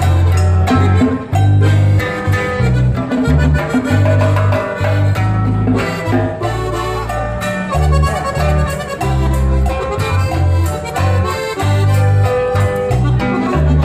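Accordion and acoustic guitar playing live together with no singing: the accordion carries a melody over the guitar's steady strummed chords and bass notes.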